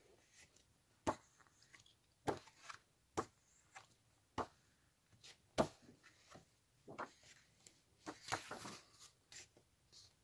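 Paper pages of a large hardcover picture book being turned by hand: a string of short, sharp paper flicks and taps about a second apart, with a longer rustle as a page slides over about eight seconds in.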